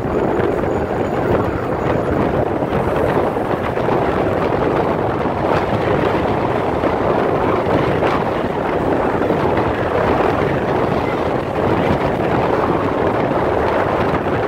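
Steady rush of road and wind noise from a car moving at freeway speed.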